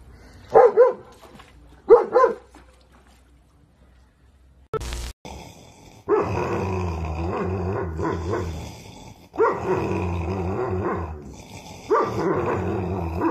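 Dog barking twice, then after a short click, dogs growling in three long bouts of two to three seconds each, play-growling as they tussle over a single toy.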